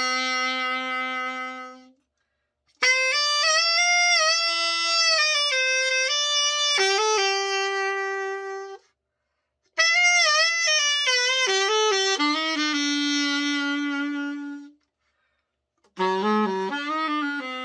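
Selmer Reference 54 alto saxophone played in short melodic phrases after its overhaul. Each phrase ends on a held low note, with brief complete silences between phrases.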